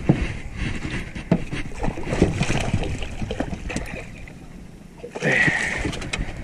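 A hooked speckled trout splashing at the surface beside the boat as it is netted, with scattered knocks and clatter on the boat. The splashing grows louder about five seconds in.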